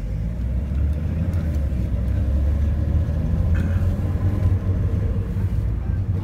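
Steady low rumble of a moving car's engine and tyres heard from inside the cabin.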